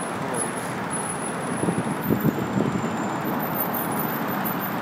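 Steady road traffic noise, with a few brief, uneven louder bursts around the middle.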